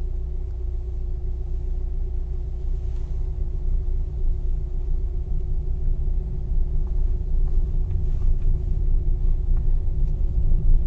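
Steady low rumble of a car driving along a road, engine and tyre noise heard from inside the cabin, with a faint steady hum over it.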